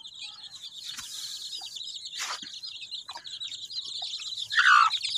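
Aseel chicks peeping rapidly and continuously in high, thin notes. A short scuffing noise comes about two seconds in, and near the end the hen gives a louder, lower, downward-sliding call, the broody hen reacting as her chicks are approached.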